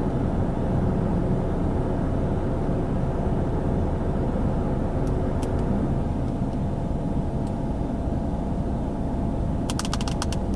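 Steady low hum of a car idling, heard inside the cabin. A few light clicks in the middle, then a quick run of taps near the end as fingernails tap out typing on a phone.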